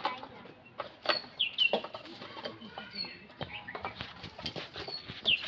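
Knocks and clatters of a bamboo stick prodding into a pile of loose bricks, with short, high bird calls repeating about every two seconds.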